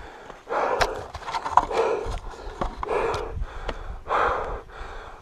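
A dirt bike rider breathing hard and panting from the exertion of struggling up a rocky hillclimb, one heavy breath about every second, with scattered knocks and clicks.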